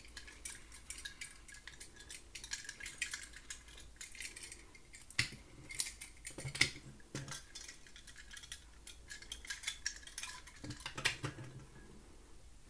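Irregular light clicks and taps of small die-cast metal toy cars being turned over in the hands and set down on a tabletop, a few louder knocks around the middle.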